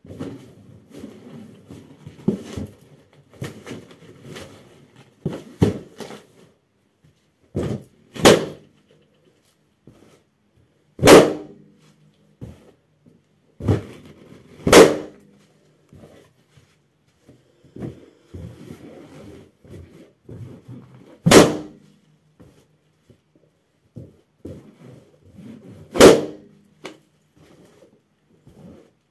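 Latex party balloons squeezed and stomped on by socked feet until they burst: five loud pops spread through, with rubbery squeaking, rubbing and softer thuds while the balloons are pressed between bursts.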